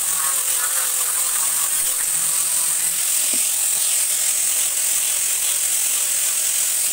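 Angle grinder fitted with a sanding disc running steadily with a high whine as it sands wood.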